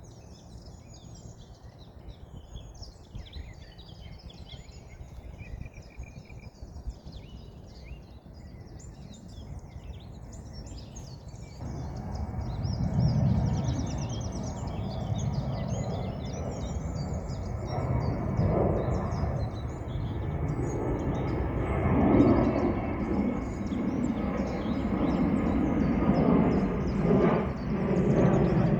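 Songbirds chirping and twittering. About twelve seconds in, a low, steady rushing noise starts abruptly and grows louder in swells, overtaking the birdsong.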